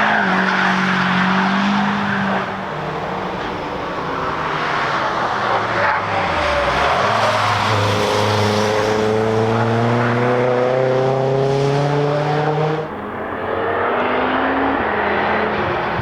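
Cars passing at speed on a racetrack, engines running hard over tyre and wind noise. Partway through, one engine's pitch rises steadily for about five seconds as it accelerates, then drops away suddenly.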